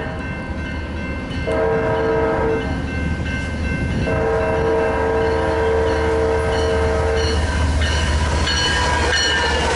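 BNSF freight diesel locomotive's air horn blowing for a grade crossing: a short blast about a second and a half in, then a long blast of about three seconds, over the low rumble of the approaching locomotive. An electronic bell rings throughout.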